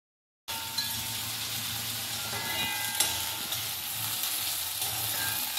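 Sliced okra and shallots sizzling in hot coconut oil in an aluminium kadai, stirred with a steel spoon that clicks against the pan now and then; the okra is being sautéed until it wilts. The sizzle starts abruptly about half a second in.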